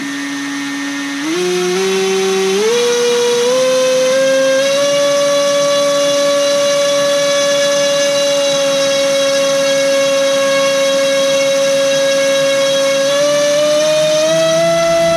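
LDpower 2305 2600KV brushless motor spinning a DAL 5040 V3 five-inch propeller on a thrust stand: a loud whine that starts abruptly. It steps up in pitch several times as the throttle is raised in the first few seconds, holds steady, then steps up again near the end.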